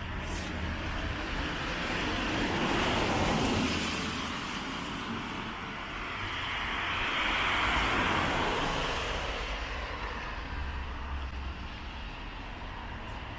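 Two vehicles passing on the street one after the other, their road noise swelling to a peak about three seconds in and again about eight seconds in, then fading.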